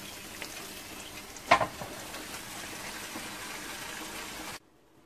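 Trout fillet sizzling and crackling on the hot plates of a Tefal electric contact grill, with one sharp snap about a second and a half in. The sizzle cuts off abruptly near the end.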